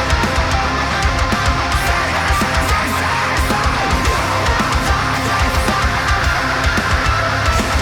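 Death metal song playing: distorted electric guitars over fast, dense drumming with rapid kick-drum strokes.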